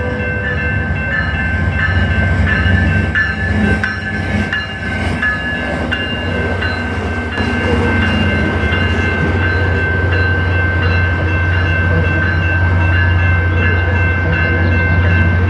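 Passenger train running: a steady low rumble with high, held tones ringing over it.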